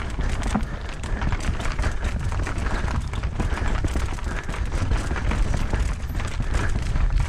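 Knolly Fugitive LT mountain bike running fast down rough dirt singletrack, heard from a rider-mounted camera: heavy wind rumble on the microphone, tyres on dirt and rock, and a rapid rattling clatter from the bike over the bumps.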